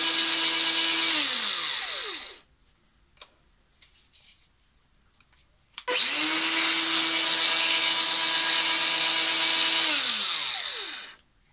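Cordless angle grinder test-run with no disc fitted: the motor's steady high whine winds down with falling pitch, then after a few small clicks it starts again about six seconds in, runs steadily for about four seconds and coasts down near the end.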